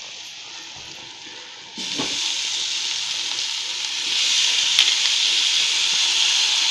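Onions and spices sizzling softly in oil in a steel kadhai; about two seconds in, chopped tomatoes are tipped in and the sizzle jumps loud, growing louder again as more tomato goes into the hot oil.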